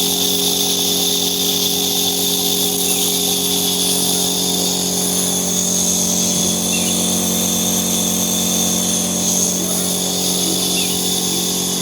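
Electric steam-inhalation machine running, a steady even motor hum that does not change.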